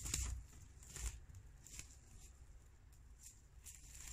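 Footsteps crunching through shallow snow and dry leaves, a few steps that grow fainter as the walker moves away.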